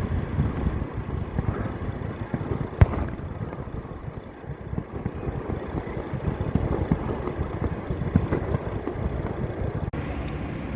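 Fireworks bursting: a low rumble with irregular crackles and one sharp bang about three seconds in.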